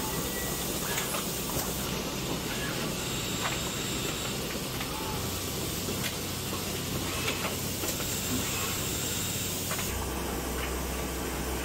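Automated motor-rotor loading machine running: a steady hiss and hum of factory equipment with scattered sharp clicks and clacks from its pick-and-place mechanism and air-driven cylinders. The low hum grows louder near the end.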